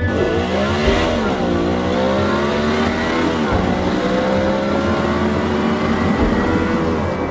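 BMW Z4's engine accelerating through the gears: the revs climb, drop at an upshift about a second in and again about three and a half seconds in, then climb slowly again.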